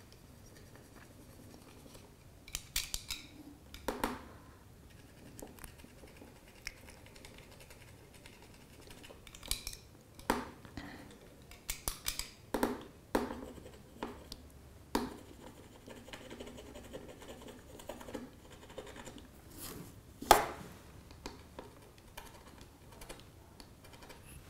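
A hardness-test pick scraping in short, irregular strokes across a smartphone's glass back under heavy pressure. The loudest scrape comes about twenty seconds in. The tip is skidding without leaving a clear mark.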